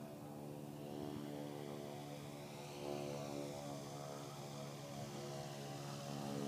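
Electric RC aerobatic plane in flight, its Hacker A60 motor and 21x10 propeller giving a steady droning hum at a distance.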